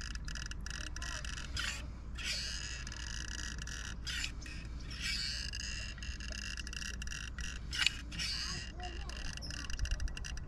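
Manual caulking gun laying a bead of silicone roof sealant, its trigger clicking once every few seconds, over a steady high-pitched background.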